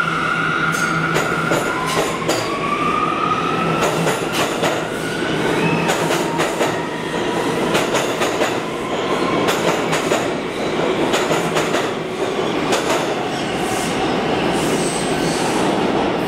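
R179 subway train pulling out of the station and rolling past, its cars clicking over the rail joints. A whine rises in pitch a couple of seconds in as the train picks up speed.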